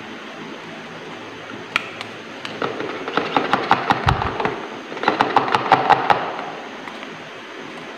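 Quick, light plastic taps and clicks as baking soda is knocked out of a small plastic cup with a spoon into a plastic funnel: two runs of rapid taps, about five a second, with a dull low thump about four seconds in.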